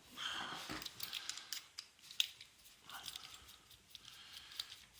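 Quiet, irregular metallic clicks and short scraping sounds as a Yale dimple rim lock cylinder and small tools are handled during dismantling.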